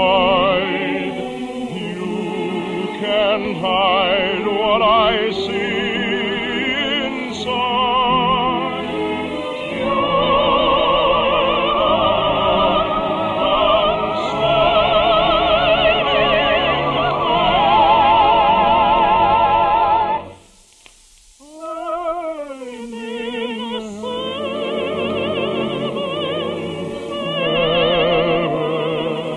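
Operatic singing with wide vibrato over an orchestra, a romantic song from a 1952 radio broadcast recording with a narrow, old-time sound. About twenty seconds in the music drops away for about a second, then comes back with a voice sliding down in pitch.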